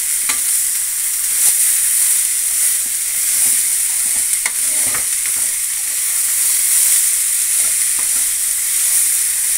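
Boiled horse gram sizzling in hot oil in a pan while a steel ladle stirs and scrapes through the beans. A steady high hiss runs throughout, broken by irregular short scrapes and clicks from the ladle.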